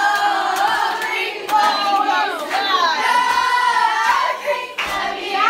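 A group of young women singing together in unison, a continuous melody with held and sliding notes and a brief break near the end.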